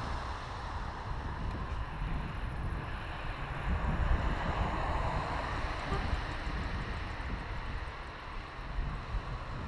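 Wind buffeting the microphone of a camera on a moving bicycle: a steady low rumble with a hiss over it.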